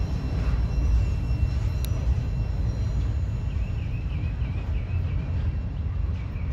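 CSX mixed freight train's last car, a covered hopper, rolling away on the rails: a steady low rumble that begins to fade near the end. A thin wavering high note sounds in the middle.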